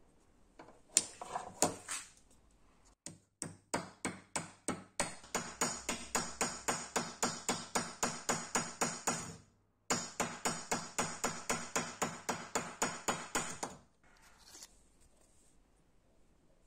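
Rapid, evenly spaced metal-on-metal taps, about four a second, each ringing briefly at the same pitch, like light hammer blows on a metal part of the air pistol. They come in runs with short breaks.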